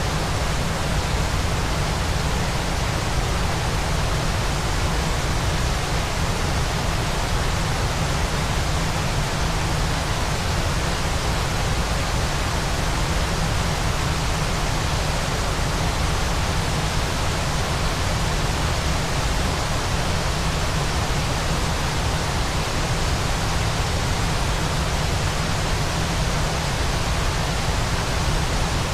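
Waterfall rushing, a dense, steady noise with a strong low rumble and no breaks or changes.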